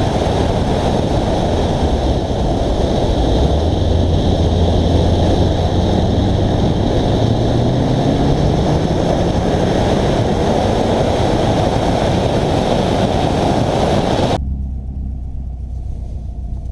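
Heavy wind buffeting on a GoPro's microphone on a moving Subaru, with the car's engine note rising steadily under it as the car accelerates. About fourteen seconds in, the wind noise cuts off suddenly, leaving a lower, quieter rumble.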